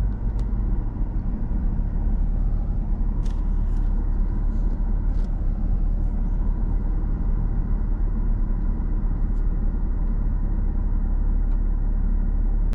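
Steady low rumble of a running car engine, with a few faint clicks.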